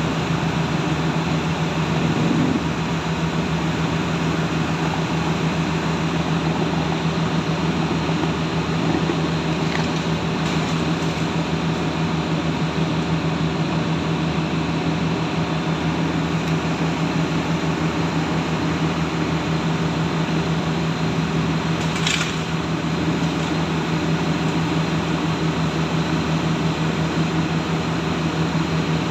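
Heavy diesel engine of a tracked excavator or bulldozer running steadily with a constant low hum. A single brief sharp knock about three-quarters of the way through.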